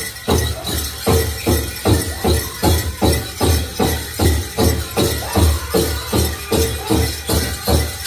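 Powwow big drum struck in unison at a steady beat of about two and a half strokes a second, with singers' voices over it and the jingling of dancers' bells.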